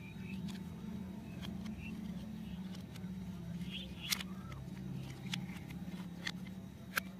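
Hard plastic toy helicopter parts clicking and tapping against each other and a wooden tabletop as they are handled, a few sharp clicks, the clearest about four seconds in and again near the end, over a steady low hum.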